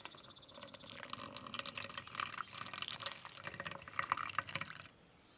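Hot water poured in a thin stream from a small camping pot into a pour-over coffee filter cone, splashing and trickling onto the grounds. The pour starts about a second in and stops shortly before the end.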